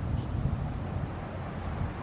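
Wind buffeting the camera microphone: an uneven low rumble with no siren tone.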